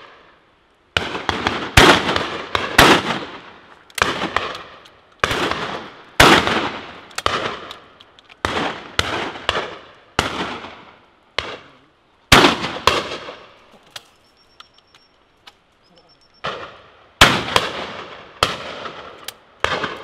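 Shotguns firing steadily at driven game birds, about sixteen shots at roughly one a second, each trailing off in a long echo. There is a pause of about two seconds in the second half before the firing resumes.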